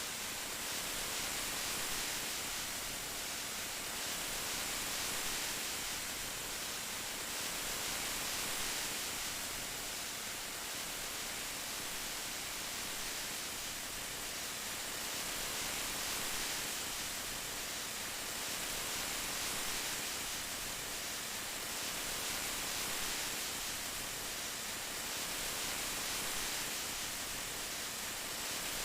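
Steady rain falling: an even hiss that swells and eases gently every few seconds.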